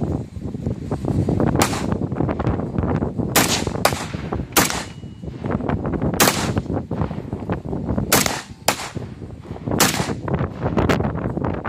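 AK-pattern rifle fired semi-automatically: a string of single loud shots at uneven intervals, about one every one to two seconds.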